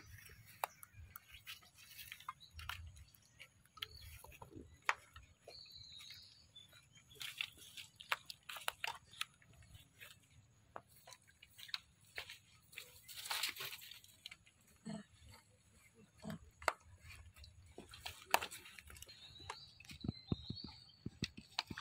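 Long-tailed macaques with infants: scattered faint crackles and rustles, like dry leaves being moved, with a few short high squeaks from the monkeys near the start and again near the end.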